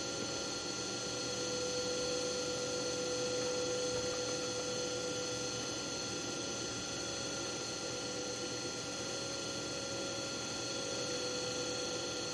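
Steady hum made of several fixed tones, unchanging throughout.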